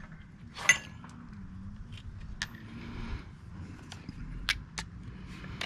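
Scattered sharp metallic clicks and clinks of hand tools: sockets and wrenches being picked up and handled, about half a dozen separate knocks.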